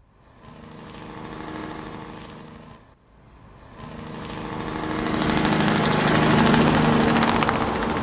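Tractor engine running steadily while pulling a tillage implement through cornstalk ground, with the rush of soil and residue over the tool. It comes in two stretches: the first fades in and dies away about three seconds in, and the second builds up and grows louder toward the end.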